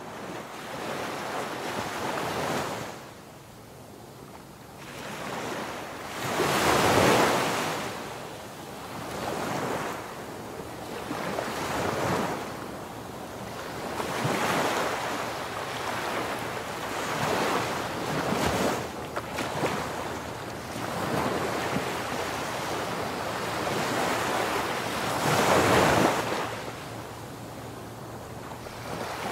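Ocean surf breaking on a sandy beach, each wave's rush swelling and fading every few seconds, with wind buffeting the microphone.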